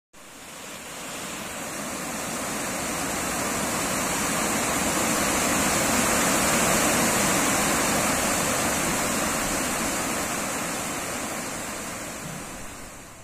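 Water rushing over a dam's weir, a steady dense rush of falling water that swells to its loudest about halfway and fades near the end.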